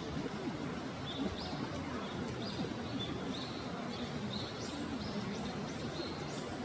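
A bird calling over and over, short high chirps that drop in pitch, about two a second, over a steady background hiss and faint distant voices.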